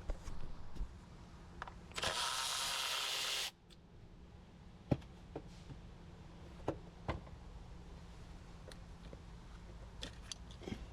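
Scattered small clicks and taps of hand tools and metal parts, fitting a compression tester into a spark plug hole. About two seconds in, a loud hiss lasts a second and a half and cuts off suddenly.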